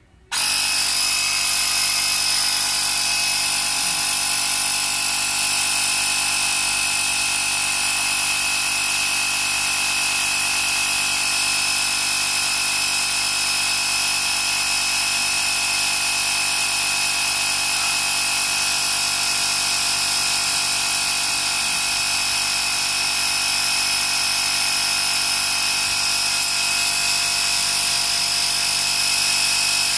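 Workzone Titanium 20 V cordless air compressor switching on abruptly and running steadily with a high whine as it pumps air into a flat car tyre.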